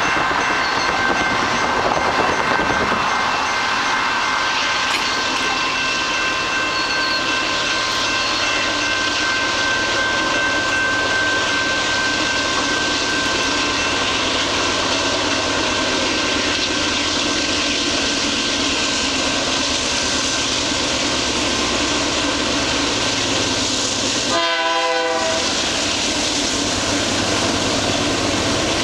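Canadian Pacific freight train approaching, with a steady rush of noise throughout. About 25 seconds in, the lead locomotive sounds a short horn blast of about a second.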